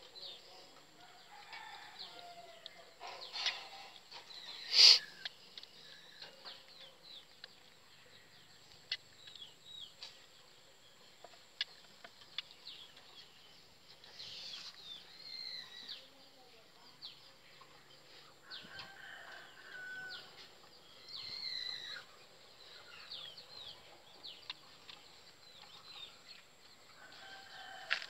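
Short, high chirping and clucking bird calls come and go in the background, with scattered small clicks. One loud, sharp knock comes about five seconds in.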